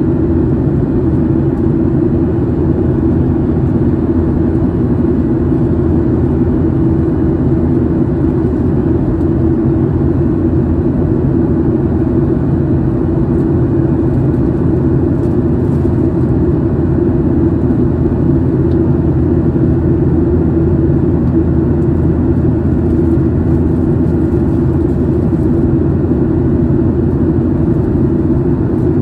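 Boeing 737 jet airliner in flight, its engine and airflow noise a steady, loud, low drone that does not change.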